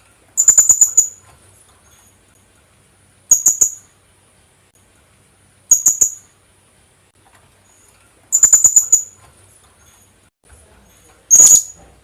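Philippine hanging parrot calling: five short bursts of rapid, shrill, very high-pitched notes, about two and a half seconds apart.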